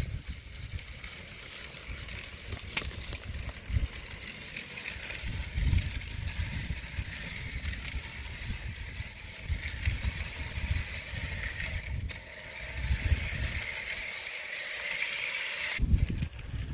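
Faint steady whir of an HO-scale model train's motor and wheels rolling on sectional track, under uneven low gusts of wind buffeting the microphone. Near the end the whir stops abruptly and stronger wind gusts take over.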